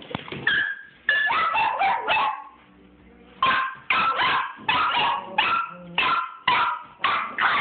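Small dog, a Chihuahua, barking repeatedly in high, sharp barks. A quick flurry is followed by a short pause about two and a half seconds in, then steady barking about twice a second.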